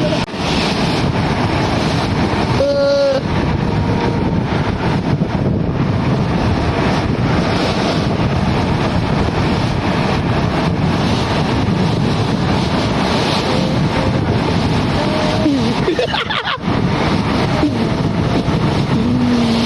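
Steady roar of a waterfall's falling water, with a short pitched voice call about three seconds in and brief voices later on.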